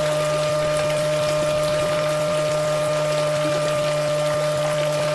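Small home-made electric water pump running with a steady whine, its outlet jet splashing onto the ground.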